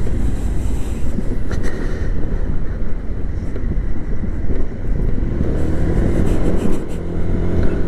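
Motor scooter riding in traffic, heard through a microphone buried in the helmet lining: a steady, muffled low rumble of engine and wind.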